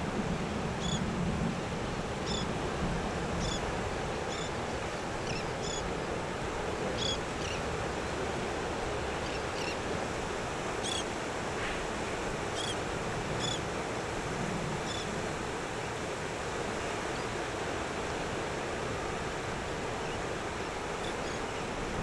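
Surf breaking and washing on a sandy beach, a steady wash of noise. Short high chirps come every second or so until about two-thirds of the way through, and a low rumble dies away in the first second or two.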